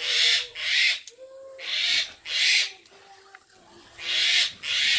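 Spoon stirring and scraping in a cooking pot, in short rasping strokes that come mostly in pairs, with a bird cooing faintly in the background.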